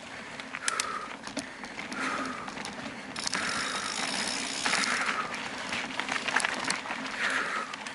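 Mountain bike running fast down a dirt forest trail: tyres on dirt and loose stones, with sharp rattles from the bike over roots and rocks. Bursts of freewheel ticking come every second or two as the rider coasts.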